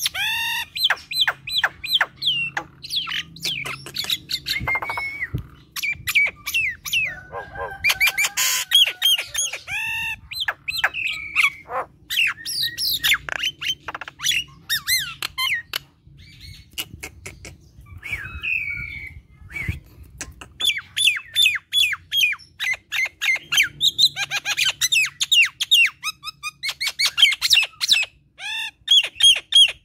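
Common myna in full chattering song: a rapid, almost unbroken jumble of harsh squawks, clicking notes and short whistles, with a couple of brief lulls.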